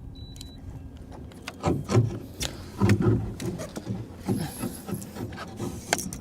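Irregular thuds, knocks and clicks of gear handled on a boat deck as a landing net is fetched for a hooked fish, starting about one and a half seconds in.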